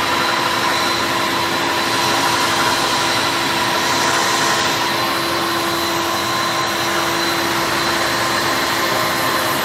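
Electric stand mixer running steadily at speed, its beater whipping cake batter in the bowl: an even motor hum with a constant whine.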